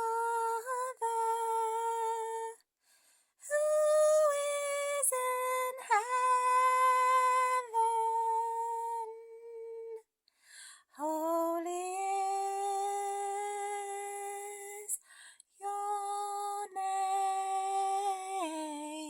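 A woman humming a slow hymn tune unaccompanied, in long, steady held notes with short breaks between phrases; the melody steps lower near the end.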